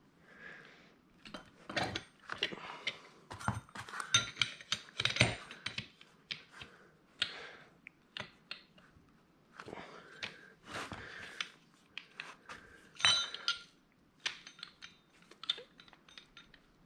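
Steel parts of an NP435 transmission mainshaft clinking and knocking as the first-and-reverse sliding gear is worked on the shaft's splines: irregular metallic clicks, some ringing briefly.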